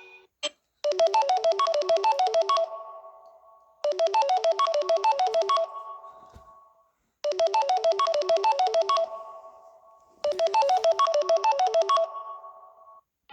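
A Samsung Galaxy phone ringtone: a quick run of short electronic melody notes, played four times with a pause after each phrase as it dies away.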